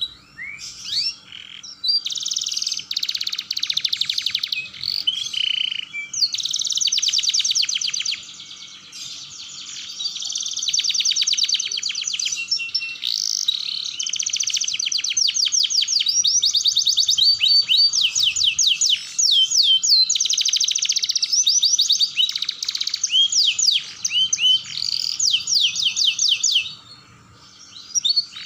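Domestic canary singing a long, rolling song of rapid trills, fast runs of repeated notes mixed with sweeping whistles, with short breaks about eight seconds in and near the end.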